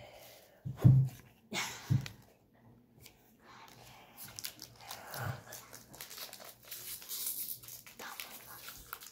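Three short, dull knocks in the first two seconds, then the crinkling of a foil Pokémon booster-pack wrapper and trading cards being handled.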